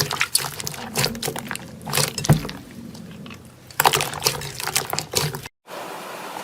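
Soft wet slime being squeezed and stretched by hand, giving a run of sticky clicks, pops and squelches. The sound breaks off for a moment near the end.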